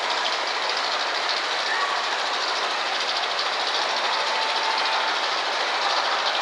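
Rocky Coaster roller coaster train climbing its lift hill, with a steady, rapid clatter from the track and lift.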